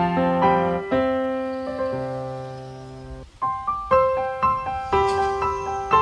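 Slow, gentle solo piano music: a phrase of single notes and chords dies away about three seconds in, and after a brief pause a new phrase begins.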